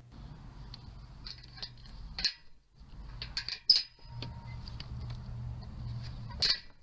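Irregular light clicks and taps, a few sharper knocks among them, over a steady low hum.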